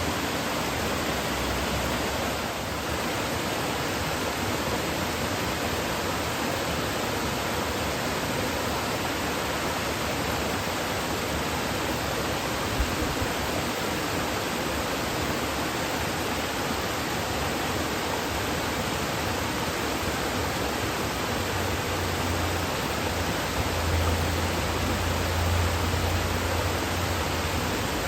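Kuzuryu Falls waterfall rushing steadily, an even wash of falling water. A low rumble swells in for a few seconds near the end.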